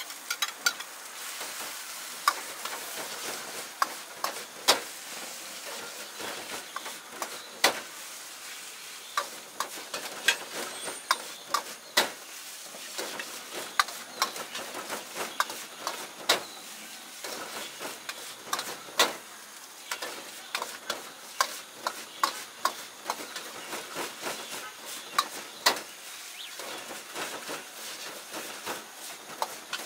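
Egg fried rice with vegetables sizzling in a wok over a high gas flame, with a steel ladle repeatedly clanking and scraping against the wok as the rice is stirred and tossed. The clanks come irregularly, several a second at times, over the steady sizzle.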